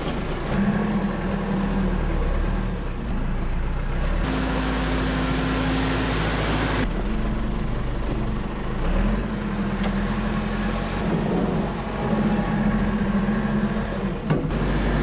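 Diesel engine of a Komatsu PC75UU-2 midsize excavator running under working load while grading, its pitch stepping up and down as the hydraulics are worked. A hiss comes in twice for a few seconds.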